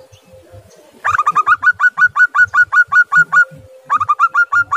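Zebra dove calling: a rapid run of short, clipped notes, about eight a second, lasting over two seconds, then a second run about half a second later.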